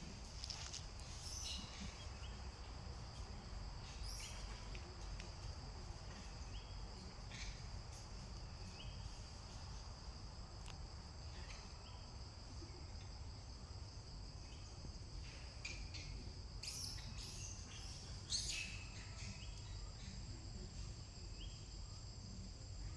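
Outdoor ambience: a steady high-pitched insect drone, with scattered short chirps and clicks over a low background rumble.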